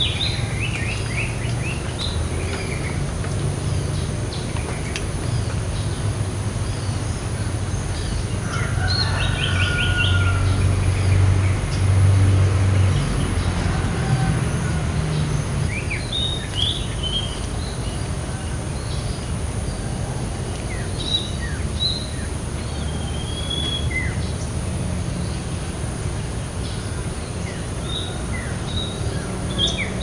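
Trilling shrike-babbler (Pteruthius aenobarbus) singing in scattered bursts of short, high, shrill chirps and trills. Under the song runs a constant low rumble that swells for a few seconds a little before the middle.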